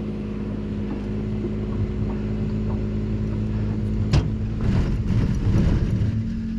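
Ford F-150 pickup engine running steadily in four-wheel drive while towing a bass boat trailer out of soft sand. A sharp knock about four seconds in, then the engine runs louder and rougher for a second or so as it pulls harder.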